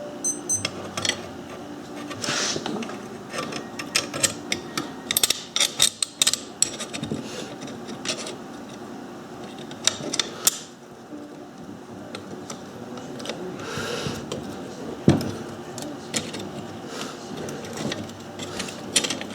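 Bolts, wing nuts and clamps being handled and fitted onto a bandsaw-blade jig: scattered clicks, clinks and taps of small metal parts, some in quick clusters, with brief rubbing and a dull knock.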